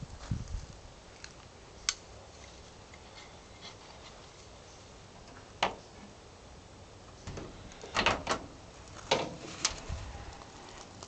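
Scattered single clicks over quiet background, then a cluster of sharp clicks and clunks about eight to ten seconds in as a 1956 Plymouth station wagon's door latch is worked and the door is opened.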